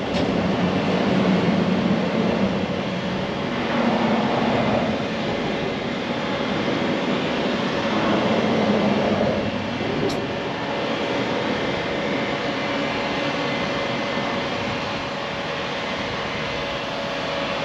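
Traffic on the bridge overhead: a steady rushing rumble with a low hum that swells about three times as vehicles pass.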